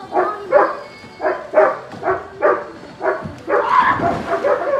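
A dog barking over and over, about two barks a second, with a splash into the pool near the end.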